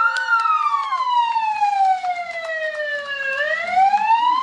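Siren wailing: its pitch falls slowly for about three seconds, then rises again near the end.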